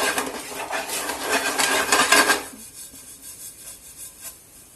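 A utensil scraping and stirring dry semolina around a hot pan: a quick run of gritty scrapes that stops about halfway through, leaving only a few faint taps.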